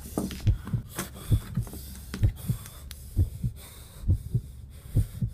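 Heartbeat sound effect: low double thumps, about one pair a second, over a steady low hum.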